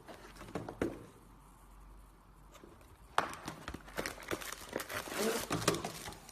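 Crinkling and rustling handling noise, with a few taps at first and then a dense run of sharp clicks and rustles from about halfway through.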